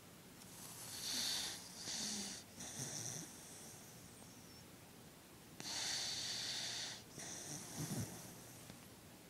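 A sleeping dog snoring: two spells of noisy, hissing breaths, one starting about half a second in and another around six seconds, each made of a few breaths, with a brief low, pitched note near the end.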